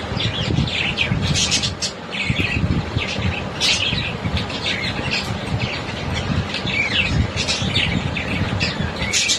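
A group of small caged pet parrots chirping and squawking continuously, many short calls overlapping, over a low rumble.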